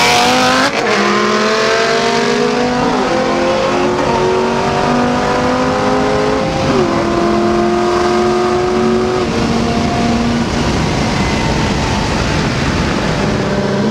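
770 hp Mustang Cobra's V8 at full throttle, heard from inside the car, its pitch climbing and dropping back at upshifts about a second in, around three seconds and near seven seconds. After about ten seconds the engine note fades, leaving wind and road noise.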